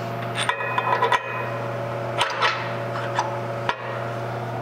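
Metal clinks and taps as a coilover shock's lower end is fitted onto its axle mount bracket with a bolt: a cluster of clicks in the first second, one ringing briefly, then a few single clinks. A steady low hum runs underneath.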